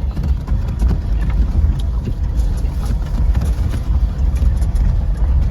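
Steady low vehicle rumble with scattered light clicks and rattles.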